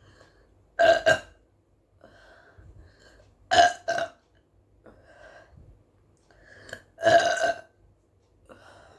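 Three loud burps from a woman, about three seconds apart, with softer breathing between them. The burps are soda burps, brought up by the gas from drinking a 500 ml bottle of Pepsi.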